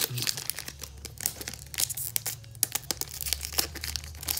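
Foil Pokémon booster pack wrapper crinkling as it is handled and torn open, a dense run of sharp crackles.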